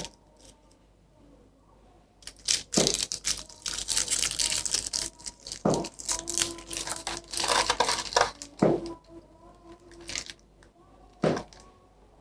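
Packaging being unboxed: plastic and paper crinkling and tearing in quick, dense spurts for several seconds, with a few sharp knocks from handling the box.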